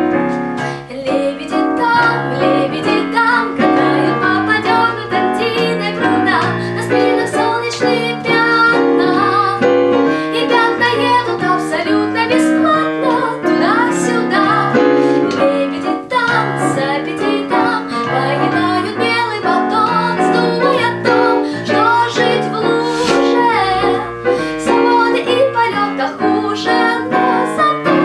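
A young woman singing a song with digital piano accompaniment.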